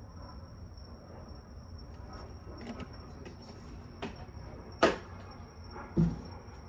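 Handling knocks from the oil jug and makeshift funnel at the engine's filler neck: a few light clicks, then one sharp click about five seconds in and a dull thump a second later. A steady high insect chirr runs underneath.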